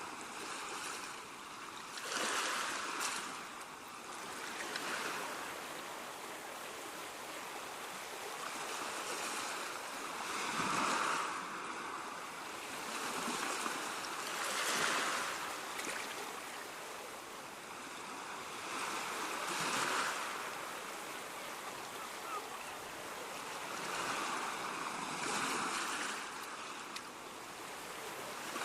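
Waves washing in, a steady rushing noise that swells and fades every few seconds.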